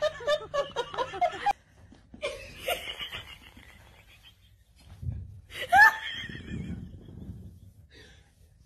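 People laughing in three separate bursts: a quick run of laughs, then two shorter ones, the last rising in pitch.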